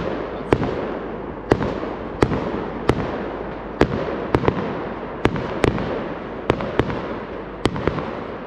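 Fireworks going off: sharp bangs of bursting shells at uneven intervals, one or two a second, over a continuous crackling rumble.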